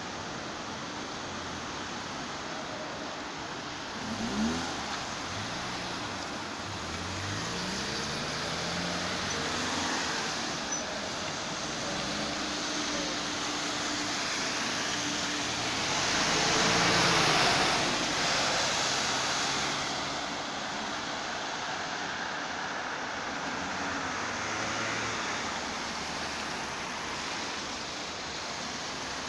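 Street traffic: cars and an articulated city bus driving through a roundabout, engines rising in pitch as they pull away. The loudest part, a broad swell of engine and tyre noise about two-thirds of the way in, is the articulated bus passing close.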